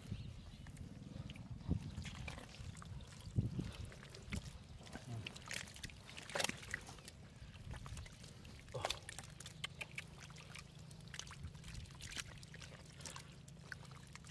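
Wet mud and water sloshing, with irregular splashes and squelches over a steady low rumble.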